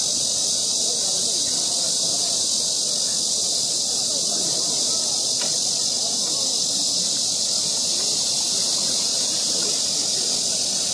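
Steady high-pitched buzzing of an insect chorus from the riverside trees, unbroken throughout, with a faint murmur underneath.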